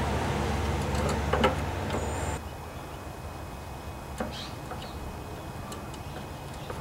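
Metal pliers crimping the ferrule on a lawnmower's starter pull rope, heard as a few faint clicks over a steady low machine hum that stops abruptly about two and a half seconds in.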